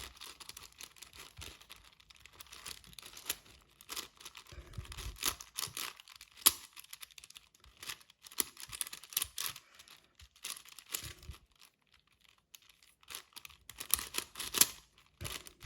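Plastic layers of a 6x6 Rubik's cube being twisted quickly while scrambling it: irregular clicking and clacking in quick runs, with a short lull about two-thirds through.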